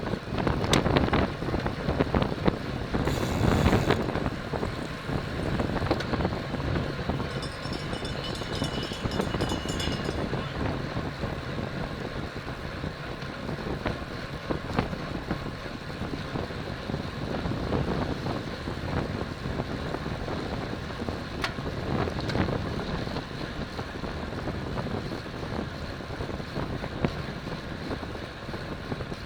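Wind buffeting the microphone of an onboard camera on a road racing bicycle while riding, with scattered clicks.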